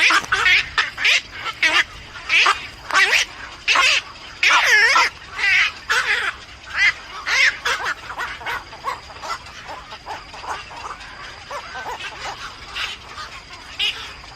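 Nestling birds calling from the nest, a rapid run of loud, harsh repeated calls that thins out and grows fainter after about eight seconds.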